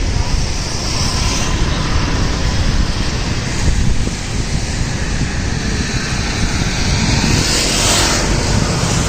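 Loud, steady rushing noise, heaviest in the low end, swelling briefly about eight seconds in.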